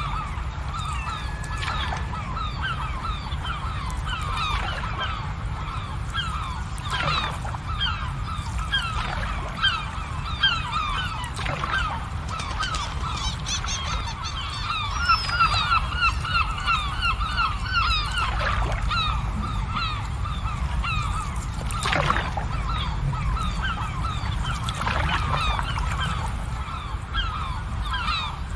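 A flock of birds calling constantly, many short calls overlapping, each dipping slightly in pitch, over a steady low rumble, with a few sharp clicks.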